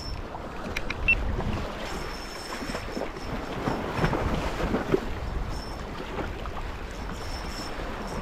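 Wind blowing on the microphone over water washing at the shore: a steady rumbling rush, with a few faint clicks about a second in.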